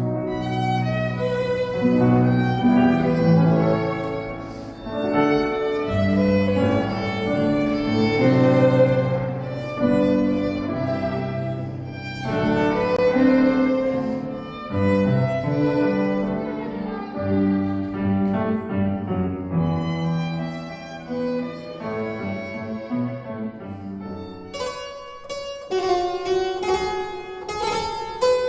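Classical music: violin and other bowed strings playing a slow melody over sustained lower notes. About 25 seconds in, a harpsichord comes in with quick, bright plucked notes.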